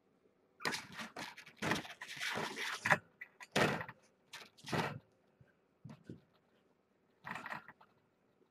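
Irregular rustling and scuffling right up against the microphone, a quick run of short bursts for the first few seconds and one more near the end, as a kitten brushes and paws at the camera.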